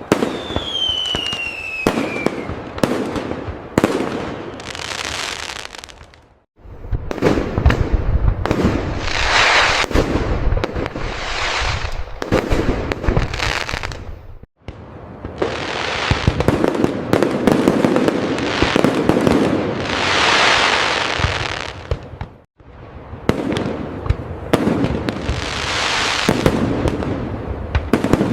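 Fireworks bursting and crackling in dense volleys of bangs, with a whistle falling in pitch near the start. The sound drops out abruptly for a moment three times, roughly every eight seconds.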